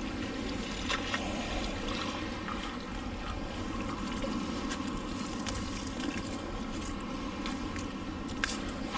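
Steady low rumbling outdoor background noise, with a few faint sharp clicks about a second in and again near the end.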